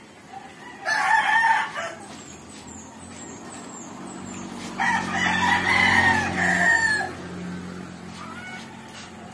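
A rooster crowing twice: a short crow about a second in, then a longer crow of about two seconds starting about five seconds in.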